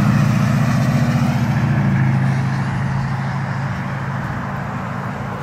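A road vehicle going by: a steady engine hum with road noise, loudest at the start and slowly fading away.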